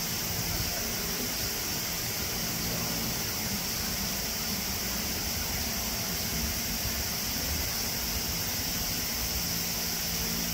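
Steady background noise: an even hiss with a faint low hum underneath and no distinct sounds standing out.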